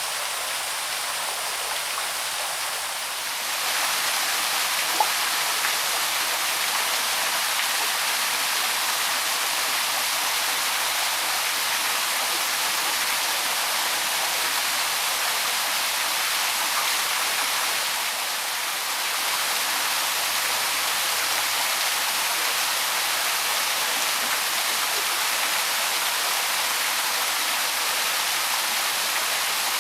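Small waterfall on the Loch, water falling and splashing in a steady hiss with little low rumble. It grows a little louder about three and a half seconds in and dips briefly just past halfway.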